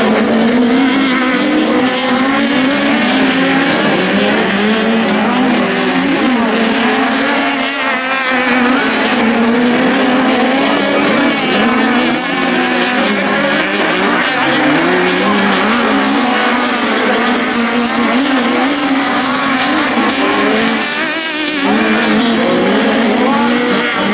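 Several 1600 cc autocross sprint buggies racing together on a dirt track, their engines revving up and down as they accelerate and back off, several engine notes overlapping throughout.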